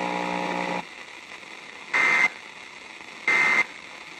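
EAS (SAME) end-of-message data bursts over weather radio: after a steady buzzing hum stops under a second in, two short, shrill digital chirps near 2 kHz sound about a second and a half apart over radio hiss. They mark the end of the broadcast warning.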